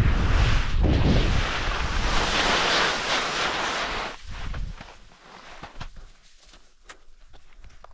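Wind rushing over the microphone for about the first four seconds. Then it drops away to quieter scattered clicks and scrapes as a hand works at an unbuckled ski boot.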